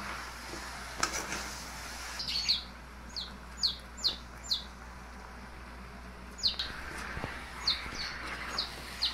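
A bird chirping: short, high-pitched chirps that fall in pitch, coming in a quick run from about two seconds in and again from about six and a half seconds in.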